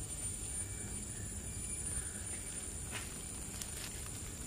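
Low, steady rumble of wind and riding noise from a bicycle on the move, with a steady high-pitched tone and a faint click about three seconds in.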